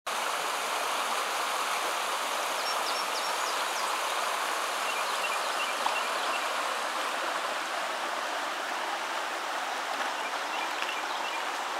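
Shallow creek rushing and babbling over rocks in a steady, even wash of water noise, with a few faint high chirps over it.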